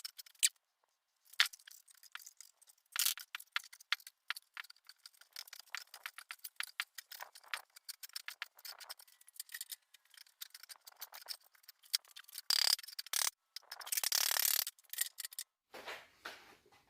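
Irregular light clicks, taps and short scrapes of hard materials being handled, with two longer rasping scrapes near the end.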